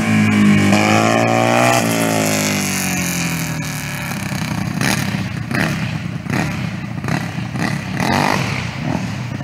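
Go-kart with twin Predator 212 single-cylinder four-stroke engines driving past. The engine note rises in pitch in the first couple of seconds, then falls and fades as the kart moves away down the road.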